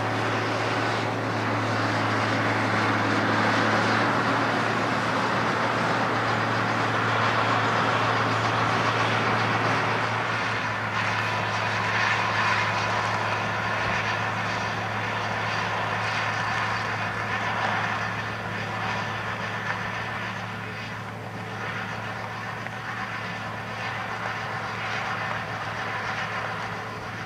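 Fendt 926 Favorit tractor's diesel engine pulling steadily under load, over the noise of a Strautmann spreader's upright beaters throwing old silage. The sound eases somewhat in the second half.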